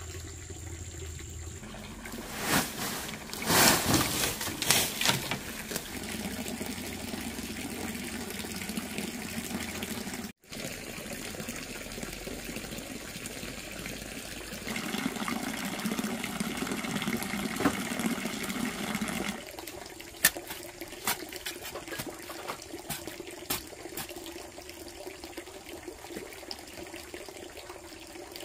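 Steady trickle of water running into a pond. A louder stretch of rustling and knocking comes a few seconds in, and scattered sharp clicks come in the second half.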